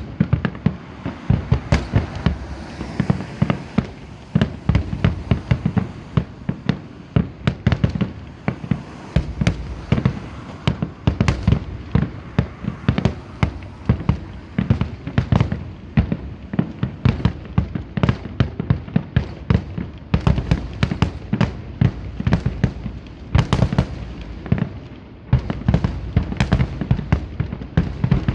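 Aerial fireworks going off in a dense barrage: sharp bangs and deep booms several times a second, with crackle between them.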